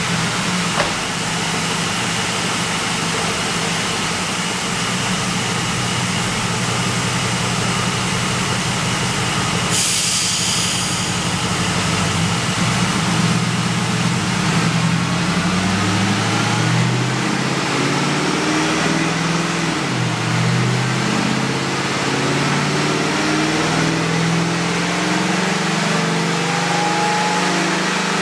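Roush-supercharged 5.4-litre V8 of a 2006 Ford F-150 running on a chassis dyno at low, fairly steady revs, its pitch wavering and edging up in the second half. A brief hiss comes about ten seconds in.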